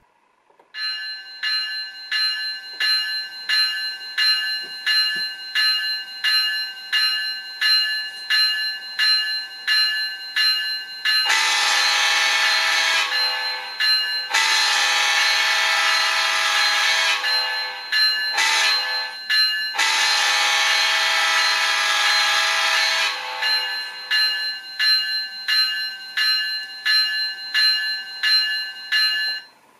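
Model-train sound decoder (ESU LokSound Select) playing a locomotive bell, ringing about twice a second, through a small speaker. Over the bell, the locomotive horn sounds four blasts, long, long, short, long: the grade-crossing signal. The bell stops near the end.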